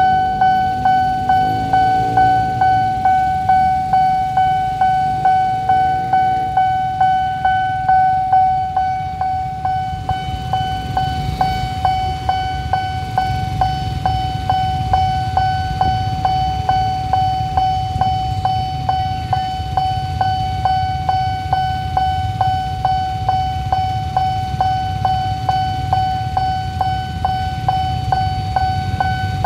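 Electronic level-crossing warning bell ringing with a steady pitch, struck evenly about twice a second, over the low rumble of idling motorbike engines waiting at the lowered barrier.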